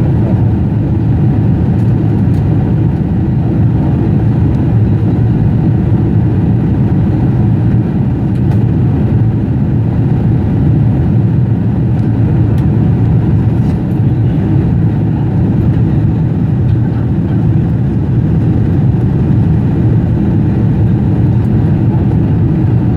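Steady low rumble of a Boeing 747-400 heard from inside the passenger cabin: engine and airflow noise, unchanging throughout.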